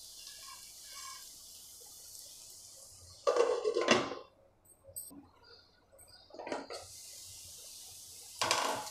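Cookware clattering: a pan lid and utensil knocking against a steel frying pan in a few short bursts, the loudest about three seconds in.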